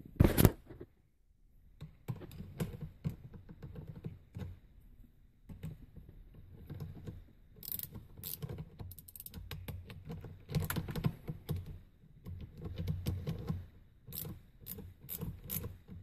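Irregular light clicking and rattling of small metal parts as a knob nut is screwed down a Hurst short-throw shifter stick by hand, with one sharp knock just at the start.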